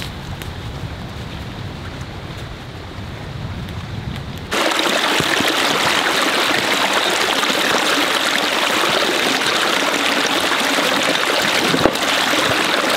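Low wind rumble on the microphone, then, after an abrupt change about four and a half seconds in, the steady rushing of a woodland stream.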